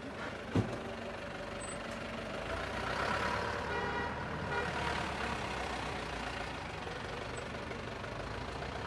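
Street traffic noise, with a light truck's engine passing close by and swelling in the middle. There is a sharp knock about half a second in.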